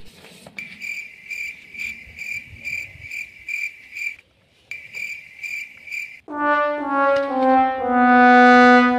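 Comedy sound effects: crickets chirping in an even pulse of about four chirps a second, cutting out briefly about four seconds in, then a sad-trombone 'wah-wah-wah-wahhh' of four descending notes, the last held long and loudest. The stock cue for an awkward silence and a flop.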